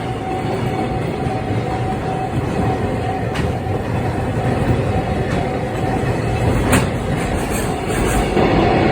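A freight train hauled by JR EF210 electric locomotives rolling past at a level crossing: a steady, loud rumble of wheels on rail, with a sharp clank twice. A level-crossing bell rings at a steady pitch in the first few seconds and again near the end.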